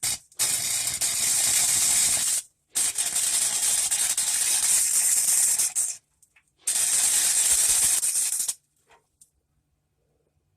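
Harbor Freight 90-amp flux-core wire welder's arc running in three stretches of about two, three and two seconds with short pauses between, stopping a couple of seconds before the end, as a broken exhaust flange is welded.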